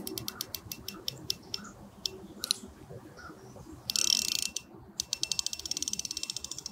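Fishing reel's drag clicking as a hooked carp takes line: slow, irregular ticks at first, a short hiss about four seconds in, then a fast run of clicks.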